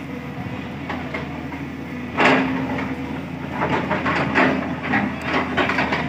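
Excavator's diesel engine running steadily as it digs a trench, with a few louder rushes of noise from the machine working.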